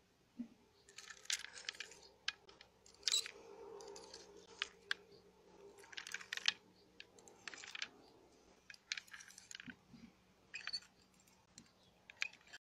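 Plastic fork tines tapping and scraping on a stainless steel plate as they push clear beads around: irregular sharp clicks and short scrapes.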